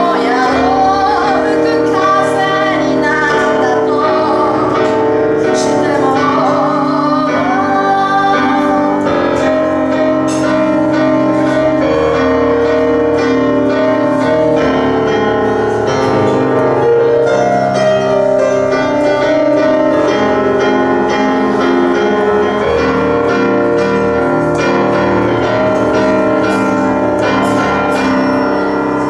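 Grand piano played in a slow improvisation with sustained chords, and a woman's voice singing along, wordless, over roughly the first eight seconds before the piano carries on alone.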